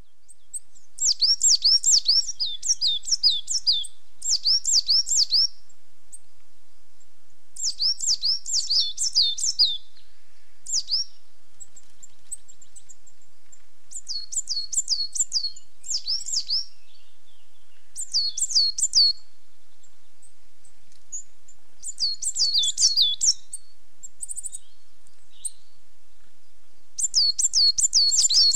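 Coal tit singing: high, quick phrases of the same two-part note repeated several times, each phrase lasting one to two seconds, with pauses of a few seconds between phrases.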